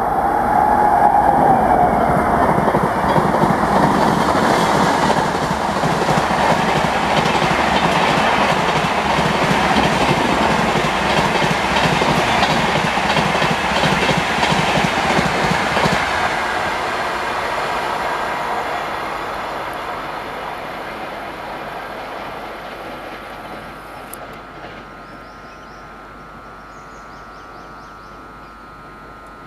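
Express passenger train rushing past at about 130 km/h, a loud, dense clatter of wheels over the track. It fades away steadily over the last dozen seconds as the train recedes.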